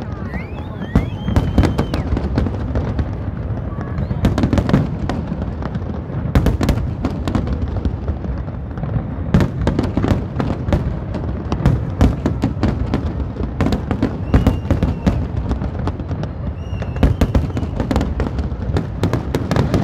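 Aerial fireworks display: a dense, unbroken barrage of shell bursts and crackling, many sharp bangs a second over a continuous low rumble.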